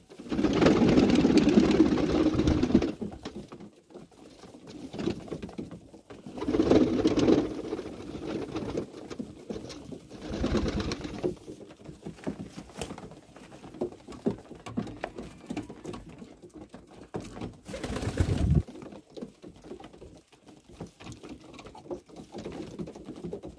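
Domestic pigeons cooing in several loud bouts, with quick pecking and pattering at loose corn kernels and at a hand holding corn between the bouts.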